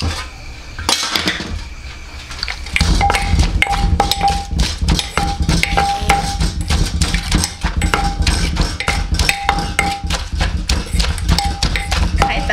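Kitchen clatter: rapid, irregular knocks and clanks of utensils on pots, pans and boards, with a steady low hum underneath, growing much busier and louder about three seconds in.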